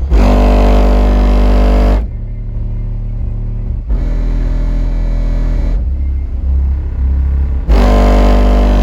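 Car-audio subwoofer playing bass-heavy music at high volume, with three long, very loud bass notes of about two seconds each.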